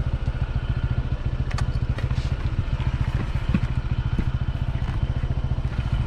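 Honda ADV scooter's single-cylinder engine running steadily with a fast, even pulse. A few light clicks sound over it.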